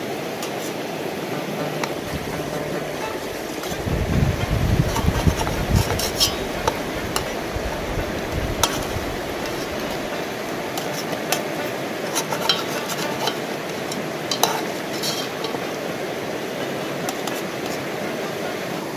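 A metal spoon scraping and clinking against a metal cooking pot and a steel platter as fried eggs are lifted out of the oil and set down, in scattered sharp clicks. A steady rushing noise runs underneath, with a low rumble about four to ten seconds in.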